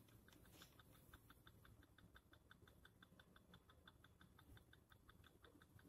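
Near silence: room tone, with a faint, rapid, regular ticking of about six ticks a second.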